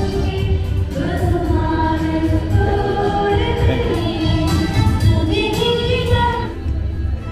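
Choir singing a hymn, with long held notes.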